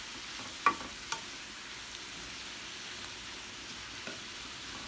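Sliced carrots, bell peppers, onions, mushrooms and garlic sautéing in a nonstick pan, a steady sizzle as they are stirred. A sharp clack of the stirring utensil against the pan comes under a second in, the loudest sound here, with a lighter one just after and a faint one near the end.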